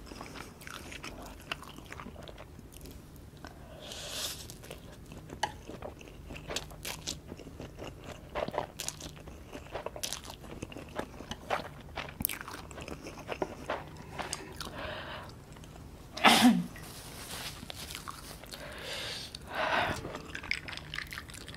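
Close-miked eating sounds of a person slurping and chewing ghost pepper instant noodles eaten with chopsticks: many small wet clicks and smacks of the mouth. About sixteen seconds in there is one louder, short sound with a falling pitch, and another louder stretch a few seconds later.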